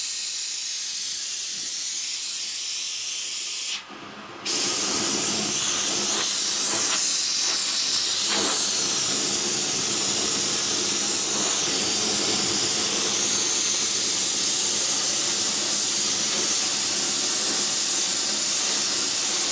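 Gas torch flame hissing steadily as it heats a steel part to bring up blue tempering colours. The hiss briefly drops out about four seconds in, then returns a little louder.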